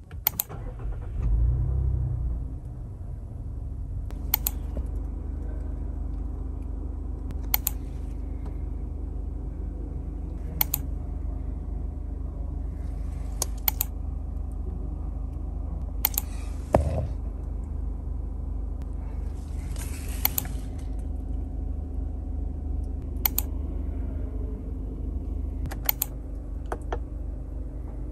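Mazda CX-30's petrol engine, heard from inside the cabin, starting with a brief flare about a second in, then settling to a steady idle. Sharp clicks come every few seconds over the idle.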